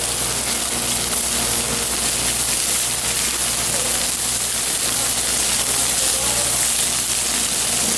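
Halibut fillets sizzling steadily in hot oil in a frying pan, just topped with spoonfuls of pesto.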